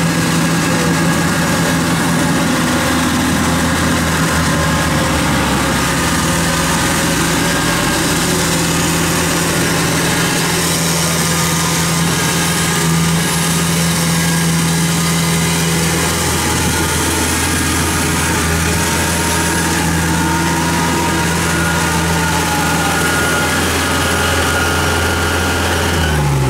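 Kubota DC-70 combine harvester's diesel engine running steadily under way, a constant low drone with a thin steady high whine above it.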